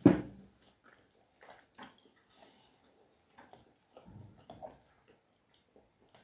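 Close-up eating sounds: chewing and small clicks of forks picking at a bowl of rfissa, shredded msemen bread with lentils. A single loud thump comes right at the start.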